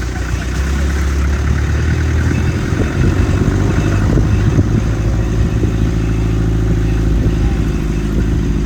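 A vehicle engine running steadily while driving off-road, with a run of rattling knocks in the middle.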